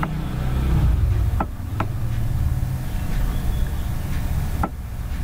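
Steady low rumble of background noise, with four short sharp clicks: a computer mouse being clicked, twice close together about a second and a half in and once more near the end.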